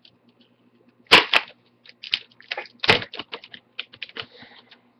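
Plastic screen bezel of an HP Pavilion M6 laptop being pried off by hand, its clips snapping free and the adhesive tearing loose. There is a sharp crack about a second in, another near three seconds, and a run of small clicks and crackles between them.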